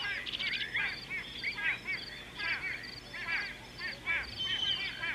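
A chorus of wild birds calling over one another, with many short arched whistled notes and a regular series of quick high notes. A long, steady high note comes in near the end.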